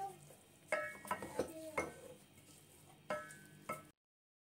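A spoon stirring and scraping spiced mash dal round a steel pot, knocking against the pot about five times with a brief metallic ring each time, as the lentils are dry-roasted in oil with their spices. The sound cuts out completely near the end.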